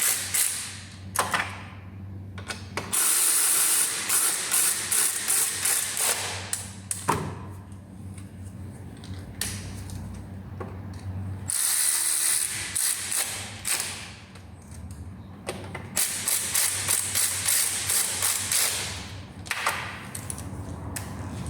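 Cordless electric ratchet running in three bursts of a few seconds each, whirring with fast clicking as it runs in the Allen bolts of a plastic engine cover, with quieter pauses between.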